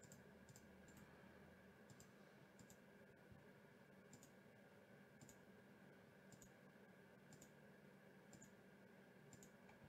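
Faint computer mouse clicks, often a quick double tick of press and release, coming irregularly about once a second as a button is clicked again and again.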